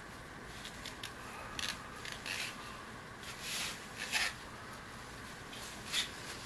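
Faint handling noises from puppets being lowered and moved: a handful of soft rustles and scrapes spread out, with no steady sound between them.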